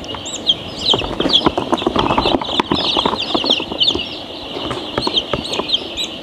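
A large flock of week-old chicks peeping without pause, many short high cheeps overlapping. Scattered light knocks and rustles sound over it, thickest a second or two in.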